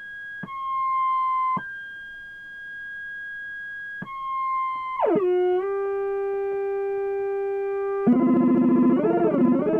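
Electronic tones from a homemade sound-effects board. A high steady beep switches back and forth between two pitches, then about five seconds in drops in a quick downward glide to a lower steady tone. Near the end it gives way to a louder, fuller tone that wavers up and down in pitch.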